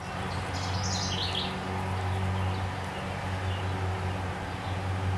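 Birds chirping a few times about a second in, over a steady low hum of outdoor background noise.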